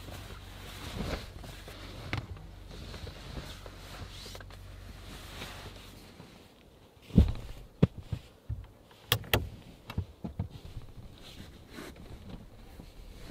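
A low steady hum that stops about six seconds in, then a series of sharp knocks and clicks, the loudest about seven seconds in.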